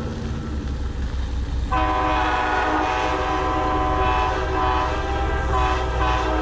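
Horns sounding together in a long, steady multi-tone chord, coming in a little under two seconds in and held, over a low rumble.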